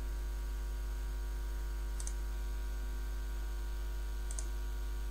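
Steady electrical mains hum from the recording setup, with two faint computer-mouse clicks, one about two seconds in and another near the end.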